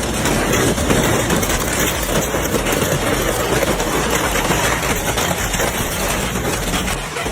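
Heavy industrial shredder running under load, a dense steady mechanical grinding noise.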